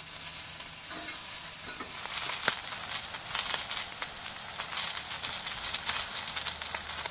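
Potatoes, sausage and spinach sizzling in a cast-iron skillet on a camp stove. The sizzle grows louder about two seconds in, with a few sharp clicks along the way.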